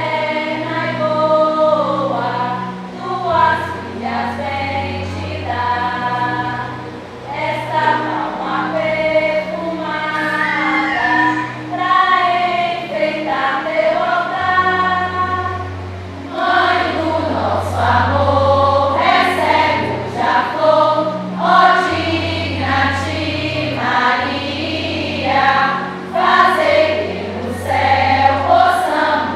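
A group of women singing a Marian hymn together for the crowning of a statue of the Virgin. Low held bass notes from an accompanying instrument change every second or two beneath the voices.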